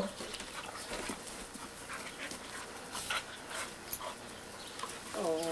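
Two dogs play-wrestling on grass: faint scuffling and panting, with a brief whine from one of the dogs near the end.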